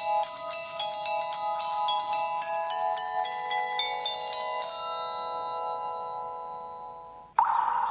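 Samsung Galaxy S GT-S7562L ringtone: a quick melody of ringing tones that settles into a held chord and fades out over a couple of seconds. A different ringtone starts abruptly near the end.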